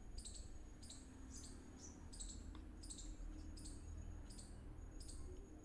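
Faint, high-pitched chirps repeating evenly about every three-quarters of a second, over a low hum.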